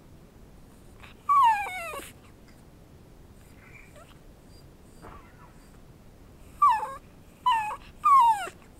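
Pomchi (Pomeranian–Chihuahua mix) dog whining: one long cry falling in pitch about a second in, then three short falling whines near the end. Begging whines for food held up above him, given instead of the bark he is being asked for.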